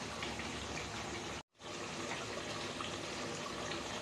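Beef and potato curry sizzling in a pan, a steady hiss that cuts out for a moment about one and a half seconds in.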